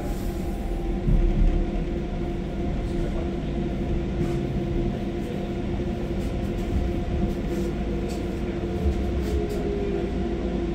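Docklands Light Railway train heard from the cab as it moves slowly along the platform coming into a station: a steady electric motor hum with a low rumble from the wheels on the rails, the tone sinking a little near the end, with a few faint ticks.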